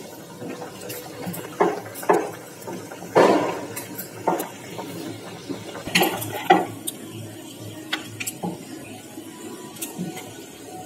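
Kitchen work at a rolling board: a wooden rolling pin rolling and knocking on a wooden board, with clinks and clatters of utensils. There are about six sharp knocks in the first seven seconds, then lighter handling.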